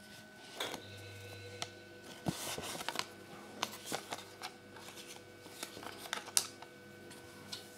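A folded paper instruction leaflet rustling and crinkling as gloved hands unfold and handle it, with irregular sharp crackles; the sharpest comes about six seconds in.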